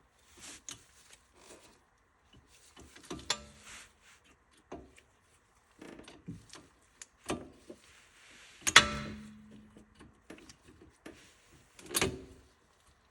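Hand tools clicking, scraping and tapping at a rusted cotter pin in an outer tie rod end's nut, in scattered metallic clicks and knocks; a couple of the harder knocks ring briefly, the loudest about two-thirds of the way through.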